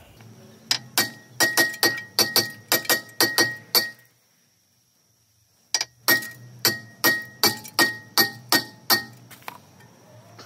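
Hammer blows on a rusted Mitsubishi Outlander brake rotor to knock it loose from the hub, the rotor ringing after each strike. Two runs of about nine quick blows, two to three a second, with a short silent break between them.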